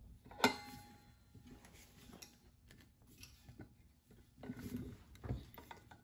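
A steel adjustable wrench clinks sharply once against metal about half a second in, with a short metallic ring, then light clicks and handling as it is fitted onto the brass regulator's nut at the nitrogen cylinder valve. A low muffled bump comes near the end.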